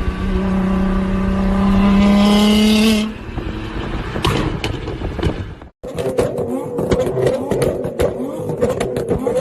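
Nissan GT-R R35's twin-turbo V6 exhaust held at steady high revs for about three seconds, rising slightly, then dropping back as the throttle is released. After a short break, a rougher, busier sound follows, full of sharp clicks.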